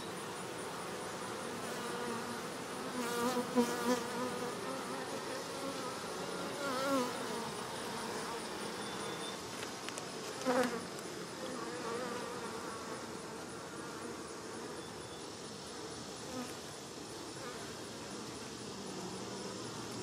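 Honey bees from an opened hive buzzing steadily in a dense hum. A few times the buzz swells briefly with a wavering pitch.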